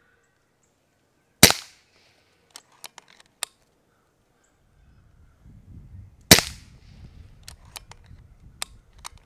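Kral Puncher Breaker .22 PCP air rifle fired twice, about five seconds apart, each shot a sharp crack with a short ringing tail. A few faint ticks follow each shot, and a low rumble sets in about halfway.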